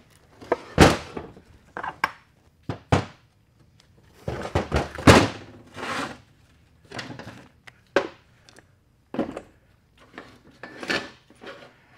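Metal transfer case parts and hand tools being picked up, moved and set down on a metal workbench: irregular clanks and thunks, with a cluster of louder knocks about four to five seconds in.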